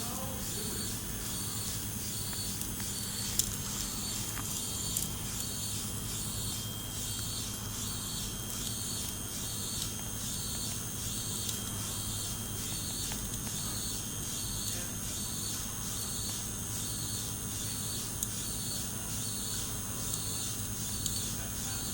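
Clay-printing robotic arm (KUKA KR-20) running: a steady electric hum and whine, with a high tone pulsing in a regular rhythm and a few faint clicks.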